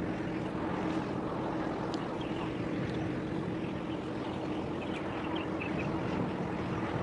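Steady low drone of a heavy-lift cargo ship's engines as it moves slowly past, over wind and harbour water noise. A few faint high chirps come about five seconds in.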